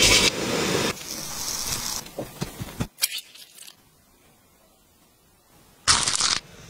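A spiral-cut potato on a skewer frying in hot oil gives a loud sizzling hiss that fades over the first two seconds. A few crisp clicks and crackles follow, then it goes near quiet. Near the end comes a short, loud burst of noise.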